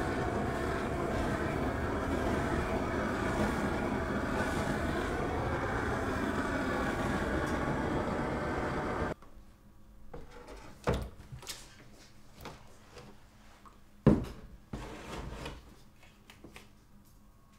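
Gas flame burning steadily under a copper photogravure plate on a wire rack, a loud even rush that cuts off suddenly about halfway through. After it, a few quieter knocks and clatters of metal trays handled at a sink, with one sharp knock near the end.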